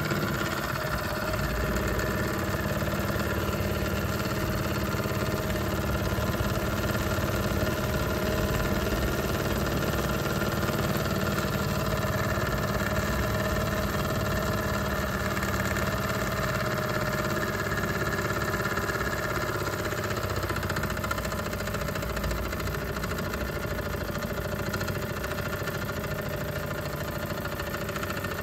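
Small model steam engine, its boiler fired by a hydrogen gas flame, running steadily at high speed, easing slightly in the last few seconds.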